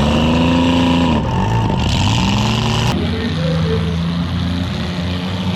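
Several demolition derby car engines running and revving together, their pitches rising and falling, with an abrupt cut to a similar engine din about three seconds in.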